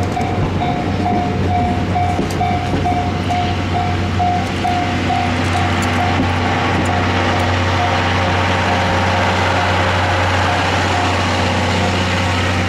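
Japanese level crossing alarm ringing in even pulses, about two a second, as blue 14-series passenger coaches roll past on the rails. From about four seconds in, the rumble of the wheels grows and covers the alarm, with a few sharp clacks over the rail joints.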